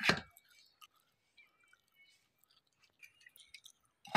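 Steel clutch plates handled and seated by hand in a power tiller's clutch pulley: faint metal clicks and light scraping, after one short louder knock at the very start.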